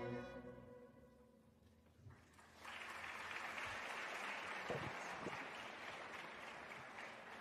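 An orchestra's last chord dies away, and about two and a half seconds later an audience starts applauding, a steady clapping that carries on.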